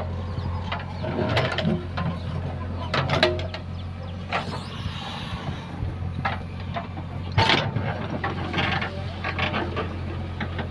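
JCB 3DX backhoe loader's diesel engine running steadily, with scattered metallic clanks and knocks as the machine works.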